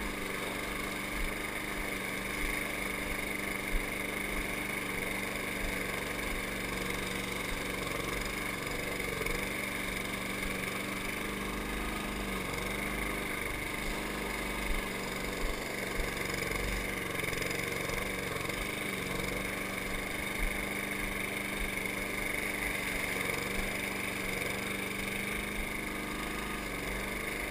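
Walk-behind gas lawn mower engine running steadily while cutting grass, heard close up from the operator's position, its pitch wavering slightly under load, with a few brief ticks.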